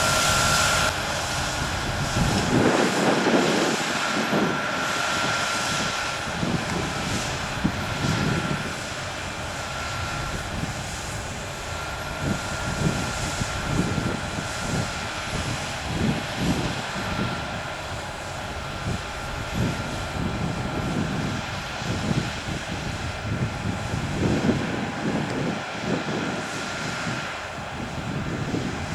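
Claas Lexion 8800 combine harvester running steadily while harvesting rapeseed, a continuous mechanical drone with a steady high whine over it. The sound is louder for about the first second, then settles into the drone with uneven low rumbles.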